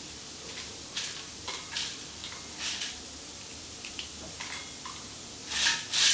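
Dried Byadgi red chillies snapped by hand and dropped into a steel mixer-grinder jar: a string of short, dry crackles and rustles, the loudest near the end as a handful is taken from a steel plate.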